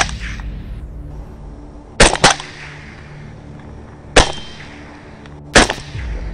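Rifle shots: a quick pair about two seconds in, then single shots about two seconds and three and a half seconds later, each a sharp loud crack.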